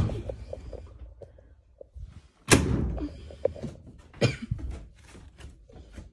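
A few loud thunks: one right at the start, the loudest about two and a half seconds in, and another about four seconds in, with smaller knocks between them over a low rumble.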